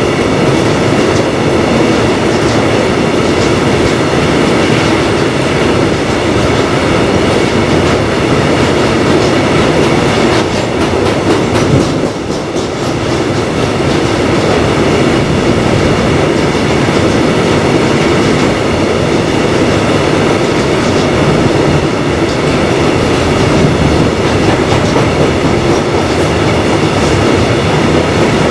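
Loaded freight wagons carrying steel coils rolling past at steady speed, their wheels running on the rails in a loud, continuous rumble, briefly easing a little about twelve seconds in.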